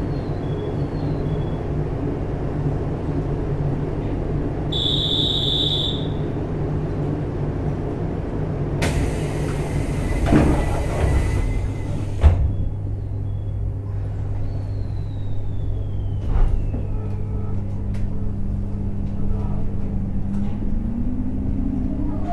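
Inside a JR East 719 series 5000-subseries electric train standing before departure: the steady hum of its onboard equipment, a short high beep about five seconds in, then a long hiss of air that ends in a thud as the sliding doors close. Near the end the traction motors start up with a rising whine as the train pulls away.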